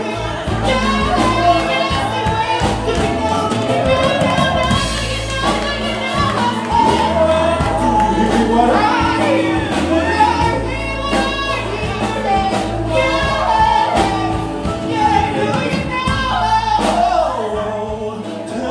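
A male singer sings live into a handheld microphone over a band of bass, guitar and drums, with a steady beat throughout.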